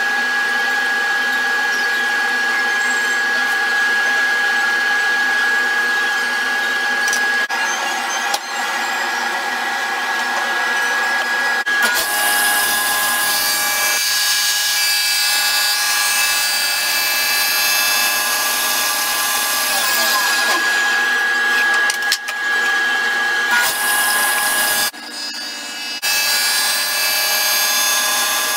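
Vintage Unisaw table saw running with a steady whine. From about twelve seconds in, its blade rips partway into a board fed with a push block, adding a hiss of cutting, with short breaks near the end.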